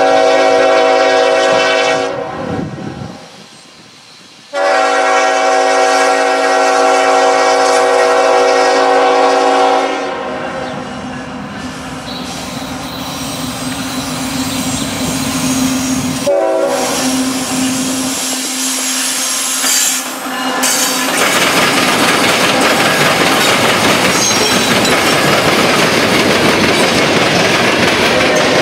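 Diesel locomotive horn on a CSX coal train, blown as a chord of several notes: one blast at the start, a longer blast from about five to ten seconds, then short blasts around sixteen and twenty seconds. From about twenty seconds the loaded coal cars pass close by with a steady rumble and wheel clatter.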